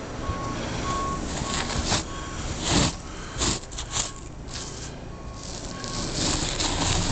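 A truck's reversing alarm beeping steadily, about two beeps a second, over the truck running; the beeping stops near the end, and a few louder rushes of noise come in the middle.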